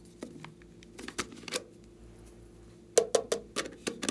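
Hard plastic containers handled in the hands, giving sharp clicks and taps: three about a second in, then a quicker run of about six near the end.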